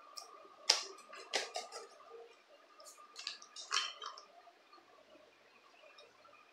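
A metal spoon clinking and tapping against a pot as chocolate powder is spooned in: a handful of short, sharp clinks over the first four seconds, the loudest just under a second in.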